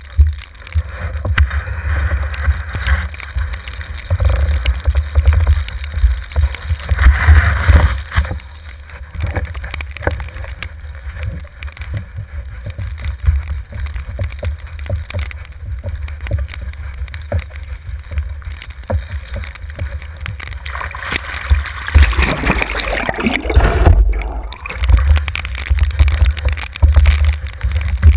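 Wind buffeting the microphone of a mast-mounted action camera on a windsurf rig under sail, with water rushing and splashing against the board. The water sound swells about seven seconds in and again a little after twenty seconds.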